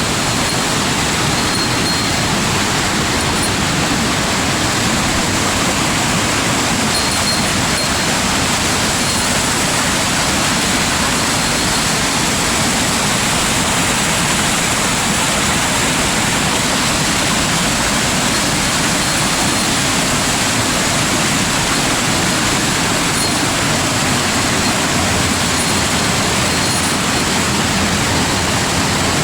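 Loud, steady rush of a waterfall.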